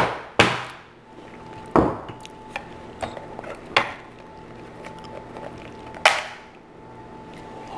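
Hammer striking a giant lobster claw to crack its very hard shell: about five sharp knocks, unevenly spaced a second or two apart, with smaller taps between. A faint steady hum runs underneath.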